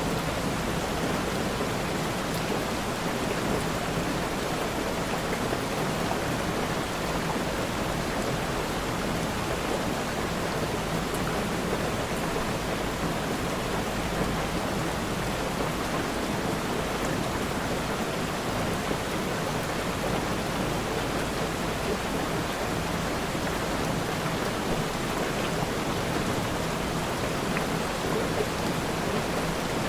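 Steady, even rain falling, a dense hiss with no breaks.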